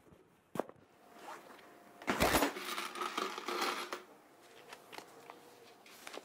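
Coins rattling and jangling inside a plastic jar as it is picked up and tilted, loudest for about two seconds from around two seconds in, after a single light knock near the start.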